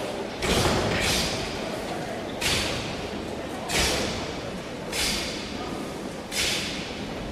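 A taekwondo team performing a pattern in unison: five sharp cracks of uniforms snapping and feet landing together, about one every second and a quarter, each ringing on briefly in a large hall.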